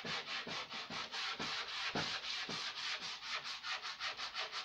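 Sandpaper (emery paper) rubbed back and forth by hand along the rail of an old wooden side table, a quick, steady rasping of about five strokes a second as the old surface is sanded down.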